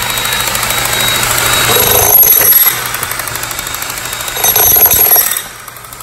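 Jackhammer chisel bit hammering into a concrete slab in rapid strokes, louder about two seconds in and again about four and a half seconds in, then easing off near the end.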